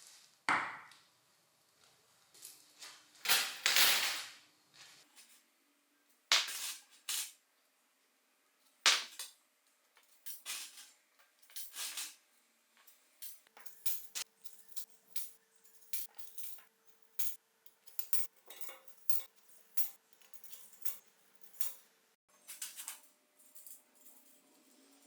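Metal parts clinking and knocking as bicycle components are handled and worked on: a few louder knocks in the first nine seconds, then a quicker run of light taps, about two a second.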